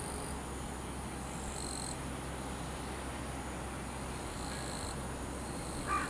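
Lakeside ambience: a steady low wind rumble under a faint, high, steady insect buzz, with a single bird call near the end.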